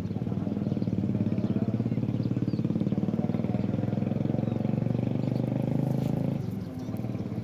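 A small engine running close by, steady with a rapid, even firing pulse, dipping briefly near the end.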